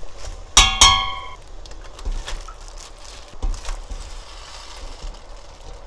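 A stainless steel pot struck twice in quick succession with a ringing metal clink, as a spoon of coarse salt is knocked into it. Scattered knocks and rustling follow as soaked dried eggplant strips are tipped from a metal mesh strainer into the pot.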